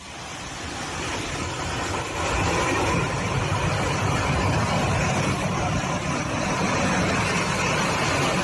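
Landslide rumbling: a steady roar of earth and rock sliding down a mountainside. It swells over the first two or three seconds, then holds loud and even.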